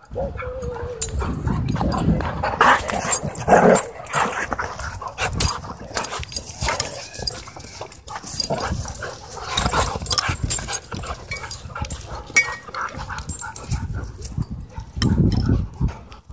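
Dogs play-fighting at close range: an uneven jumble of short barks, yips and whines, with scuffling and knocks as the dogs bump against the microphone.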